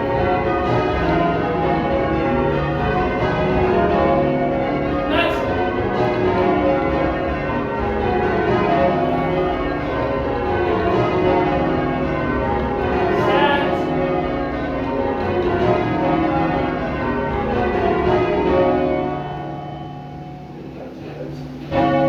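Change ringing on a ring of twelve church bells, tenor 28-2-16 cwt in C sharp, with the strikes following one another in a dense, even stream. A few seconds before the end the ringing stops and the bells hum away, then one sudden loud stroke sounds near the end.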